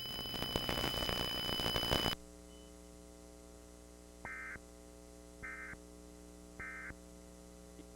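Loud static hiss with a steady high tone for about two seconds, cutting off abruptly to a low electrical hum. Then come three short bursts of data tones about a second apart: the Emergency Alert System end-of-message code that closes the alert.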